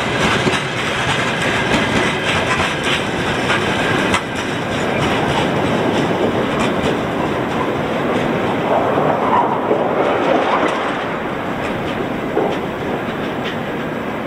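Freight train wagons rolling past on the rails, wheels clicking over rail joints in a steady clickety-clack with rumbling noise. The clatter thins and eases off as the last car passes and moves away in the second half.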